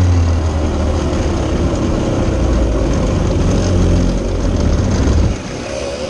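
Sirio TT85 100cc two-stroke kart engine running at low revs as the kart rolls slowly down the pit lane, then cutting out abruptly about five seconds in as the kart comes to a stop.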